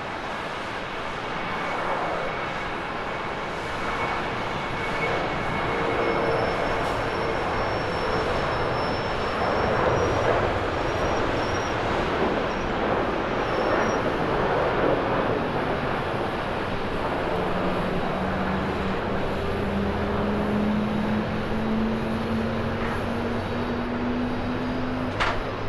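A Japan Airlines Boeing 767-300ER's twin General Electric CF6 turbofans at takeoff thrust: a steady jet roar that builds through the takeoff roll and rotation and is loudest about ten to fifteen seconds in. In the second half a low drone rises slowly in pitch as the airliner climbs away.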